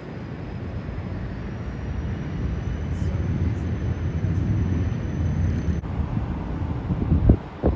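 Outdoor city ambience: a steady low rumble of distant traffic that swells through the middle, with a couple of low thumps near the end.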